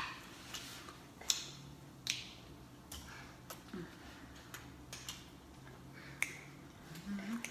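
Close-up eating of stuffed crust pizza: wet lip smacks and sharp mouth clicks at an uneven pace, about one or two a second, with a short rising hummed "mm" near the end.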